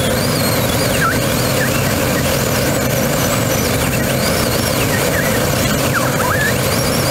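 Steady rush and hum of flight noise inside the cockpit of a Grob G103 Twin Astir glider, with thin, wavering whistles that rise and fall several times over it.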